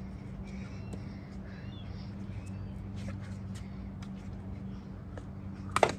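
A steady low hum with faint bird chirps, then a single sharp knock near the end as a pitch comes in.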